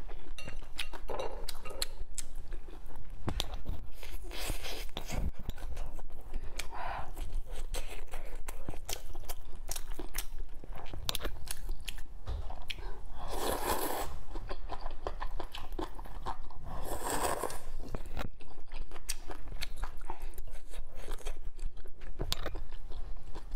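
A person eating spicy rice noodles (luosifen) close to the microphone: steady wet chewing and crunchy bites, with louder slurps about 4, 7, 13 and 17 seconds in.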